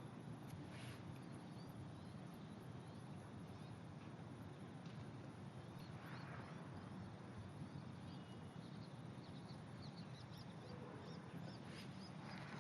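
Frogs calling faintly: a few scattered, short croaks over steady low background noise.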